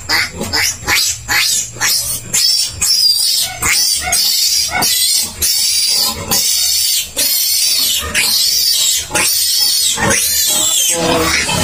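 Newborn piglet squealing shrilly in a rapid, unbroken string of cries, about two a second, while it is restrained and injected in the hind leg.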